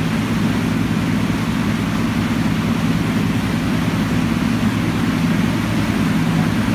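Boat motor running steadily under way, a low even engine drone over a steady rushing hiss of water and wind.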